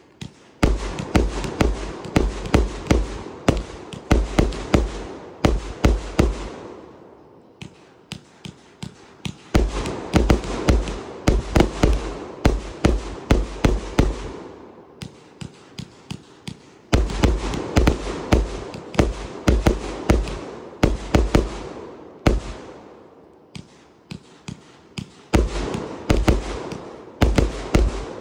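A 288-shot consumer fireworks cake firing in rapid volleys, its tubes sending out several sharp bangs a second. It goes in four bursts of about five seconds each, with short lulls in between.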